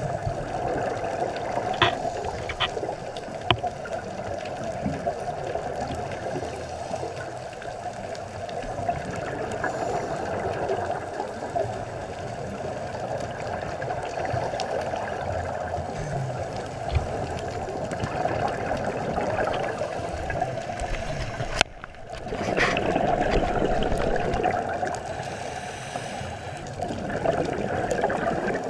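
Underwater sound of a scuba diver's regulator breathing: steady bubbling and gurgling of exhaled air, muffled through a waterproof camera housing, with a few small clicks. The sound breaks off for a moment about three quarters of the way through and comes back louder.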